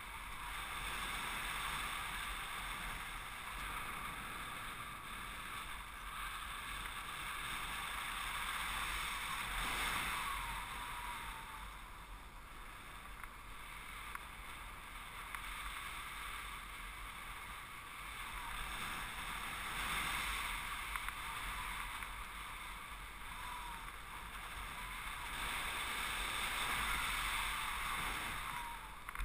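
Wind rushing past a paraglider pilot's camera in flight: a steady airy hiss that swells and eases several times.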